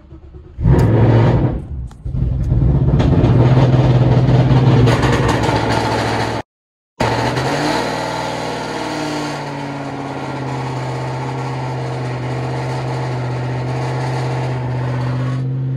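Shelby GT500's supercharged V8, fitted with aftermarket cams and Corsa Xtreme exhaust, cold-starting: a brief crank, then the engine catches with a loud flare less than a second in and settles into a loud, steady cold idle, heard from inside the cabin. There is a half-second break about six seconds in, after which the idle runs on slightly quieter.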